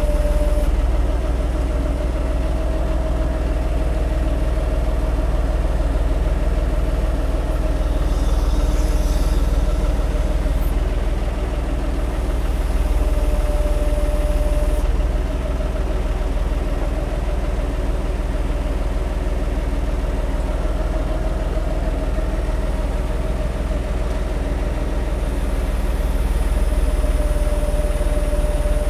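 John Deere tractor's diesel engine running steadily at low revs as the tractor creeps forward carrying a band saw on its loader's pallet fork, with a steady higher tone over the engine that comes and goes.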